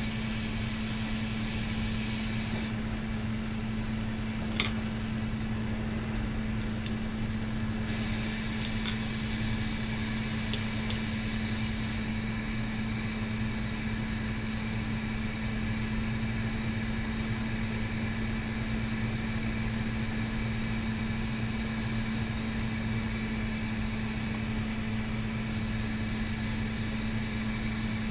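Steady hum and hiss of a lampworking bench torch burning, with glass rods being worked in its flame. A few light clicks come in the first half.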